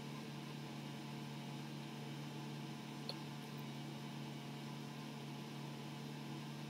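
Quiet room tone: a steady low hum with faint hiss, and one soft click about three seconds in.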